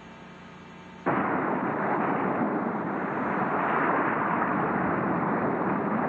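Soft music cuts off about a second in and gives way to a loud, steady rushing noise of a boat under way at sea, its engine running under the rush of wind and water.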